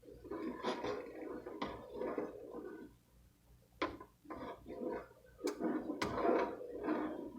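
A few sharp clinks and knocks of kitchenware, heard over indistinct background voices.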